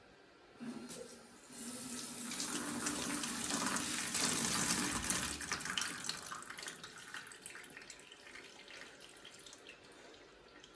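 Bathroom sink faucet running, the water flowing down the sink's drain and splashing out of the open drain pipe, with the bottle trap removed, into a plastic tub below. The flow starts about a second and a half in, is loudest around four to five seconds, then dies away.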